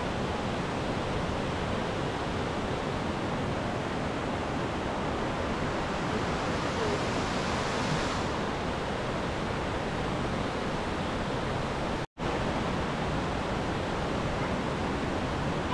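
Rushing river water tumbling down a concrete spillway, a steady, even rush. It cuts out for an instant about twelve seconds in.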